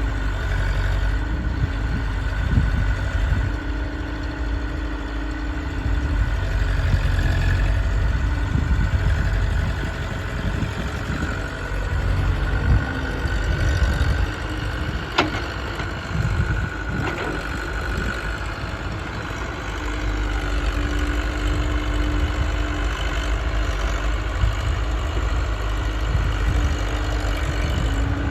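Diesel engines of a JCB backhoe loader and a tractor running steadily, with two sharp knocks about halfway through.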